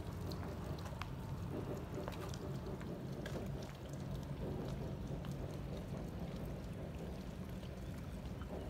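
Water lapping and splashing against moored boat hulls in small scattered ticks, over a steady low rumble of motor yacht engines running at slow harbour speed.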